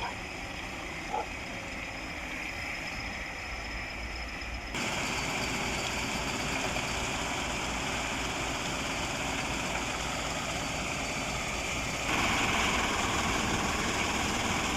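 EK-18 excavator's diesel engine running steadily, getting louder in a step about a third of the way in and again near the end.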